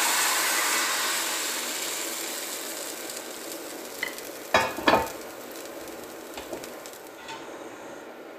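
Thin blini batter sizzling in a hot cast-iron skillet, the hiss loudest at the start and slowly dying down as the pancake sets. Two knocks about halfway through.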